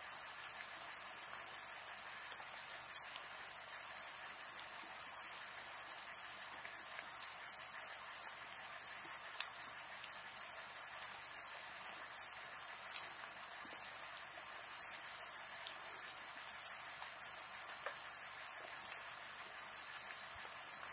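Night insects chirping in an even, high-pitched rhythm, about three chirps every two seconds, over a steady hiss of light rain.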